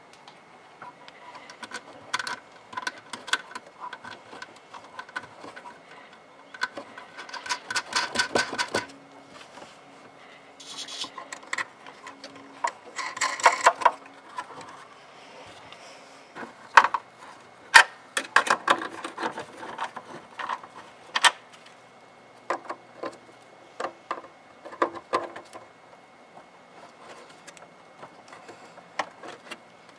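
Hands fitting an aftermarket tail light on a BMW E36 M3: irregular plastic clicks, knocks and rattles as the light housing is handled and fastened from inside the trunk, with denser rattling about eight and thirteen seconds in.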